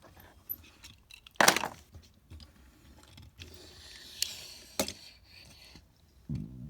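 Toy cars clacking and scraping against a hard surface: a few sharp knocks, the loudest about a second and a half in, and a scraping rustle near the end.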